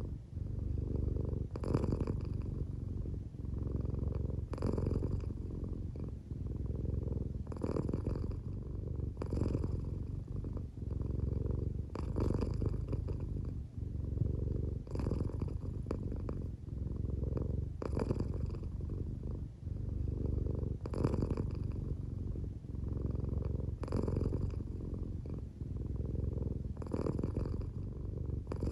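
American Shorthair cat purring steadily and deeply, the purr swelling and easing with each breath in and out, with a breathy rasp at each turn about every one and a half seconds. The cat is drowsy and close to sleep, and the owner wonders whether the sound is partly snoring.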